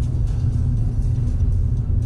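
Steady low road rumble of a car driving, engine and tyre noise heard from inside the cabin.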